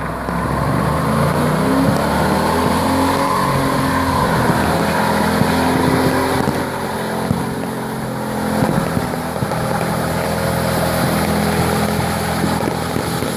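Car engine running, its low pitch drifting up and down, over a steady wash of noise with scattered crackles.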